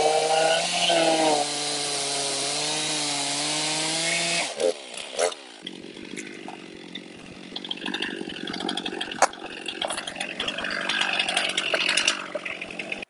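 Stihl chainsaw cutting into a red oak log at full throttle, the engine note dipping about one and a half seconds in as the chain bites, then cutting off suddenly a little over four seconds in. After that come quieter knocks and scrapes of the cut wood being handled.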